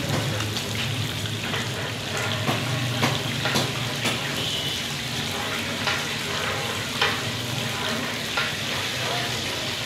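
Masala-marinated fish pieces deep-frying in a large wok of hot oil with a steady sizzle. A metal skimmer clinks and scrapes against the pan now and then as the pieces are turned.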